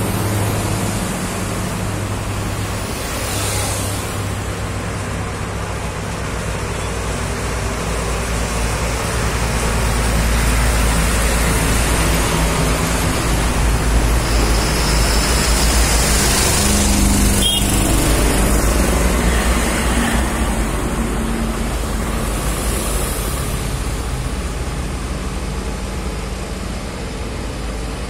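Road traffic heard from a moving vehicle: a steady engine drone with road and wind noise, and vehicles passing by a few times.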